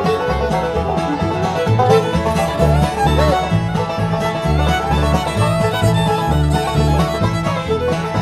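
Bluegrass band playing an instrumental: fiddle and banjo over guitar, with the bass keeping a steady beat about twice a second.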